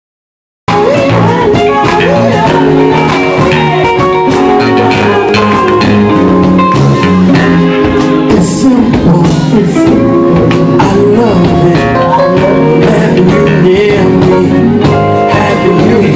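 Live band playing loudly: a woman singing lead over drums, electric guitar and keyboard. It cuts in abruptly about half a second in.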